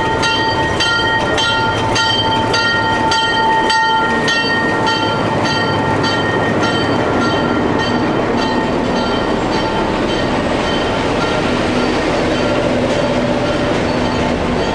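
Diesel passenger train pulling into the station. A steady high-pitched squeal and rapid, evenly spaced clicks run through the first few seconds as the locomotive and coaches roll past. Both fade as the train slows, leaving a steady rumble.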